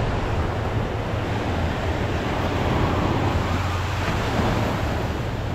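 Steady wind rumble on the microphone over the wash of ocean surf on the beach.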